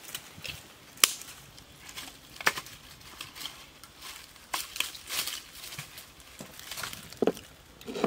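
Dry twigs and leaves snapping and crackling as a small fire is lit and fed; irregular sharp cracks over a light hiss.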